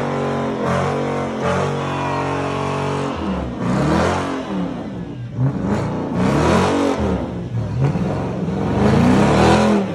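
Mopar muscle car engine held at a steady high speed, then revved hard again and again from about three seconds in, its pitch sweeping up and down with each blip.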